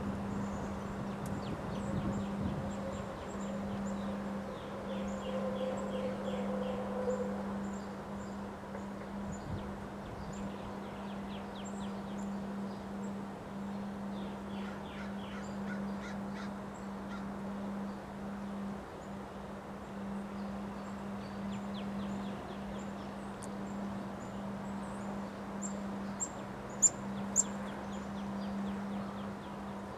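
Birds calling outdoors in two runs of short, quickly repeated calls, with scattered high chirps, loudest near the end, over a steady low hum.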